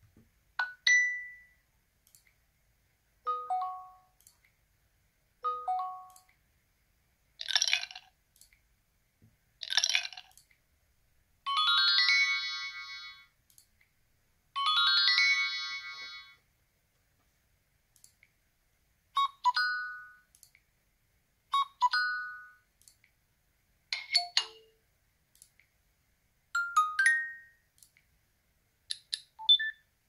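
LG Q7 smartphone playing its short preset alert tones one after another through its speaker. Each brief chime or jingle sounds twice, two to three seconds apart, with a gap before the next, different tone.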